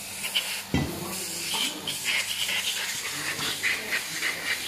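Metal-on-metal clinking and scraping from hand tools and a spanner working on a truck gearbox, with one sharp knock just under a second in, over a steady hiss.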